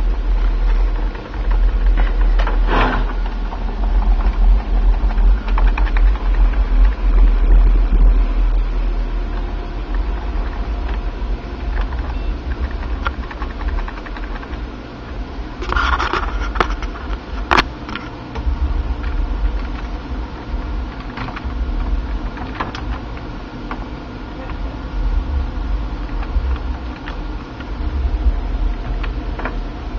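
Desktop PC running as it restarts into the BIOS, its cooling fans giving a steady low hum. A few sharp clicks, with a short hiss of noise about halfway through.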